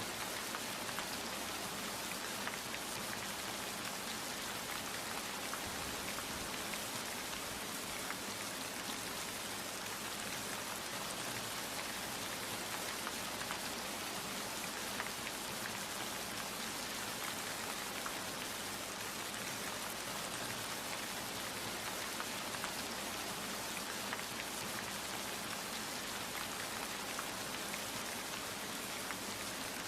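Steady rain falling, a dense even patter of many drops with no thunder.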